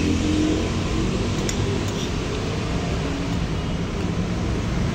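Steady low rumble of road traffic, with a couple of light clicks about a second and a half in.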